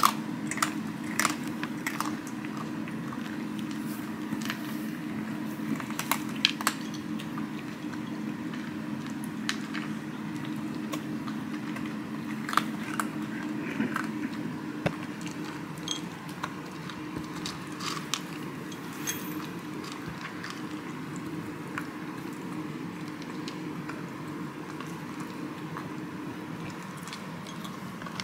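Two cats eating dry kibble from their bowls: irregular crunching and chewing clicks, over a steady low hum.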